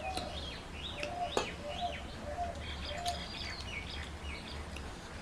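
Small birds chirping repeatedly in short, arched chirps, with a few lower short notes among them. A single sharp click about a second and a half in.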